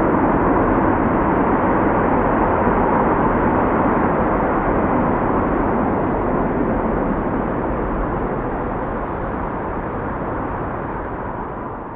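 Distant freeway traffic: a steady, even rush of tyre and engine noise from many vehicles, fading out near the end.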